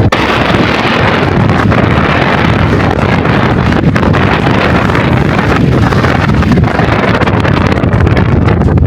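Strong wind from a sandstorm blasting across the microphone: a loud, steady rush, heaviest in the low end.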